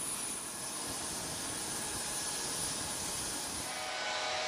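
Steady rushing noise of running jet engines with a thin high whistle, changing about four seconds in to a slightly louder turbofan whine with several steady tones, from the C-5M Super Galaxy's General Electric CF6-80C2 turbofans.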